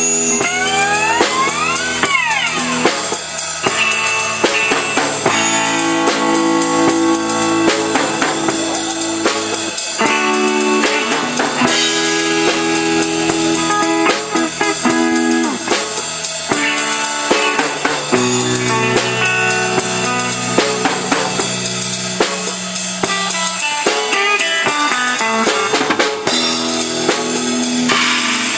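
Live rock band playing an instrumental passage: electric guitars over a drum kit. About a second in, a guitar note bends up in pitch.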